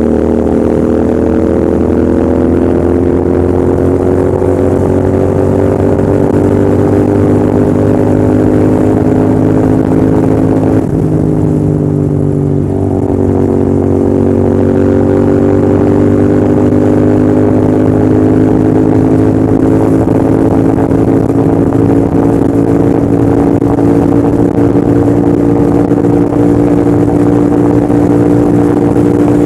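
Royal Enfield Continental GT650's 648 cc parallel-twin engine pulling hard under throttle, its pitch climbing slowly. About eleven seconds in the pitch breaks and drops, then climbs again.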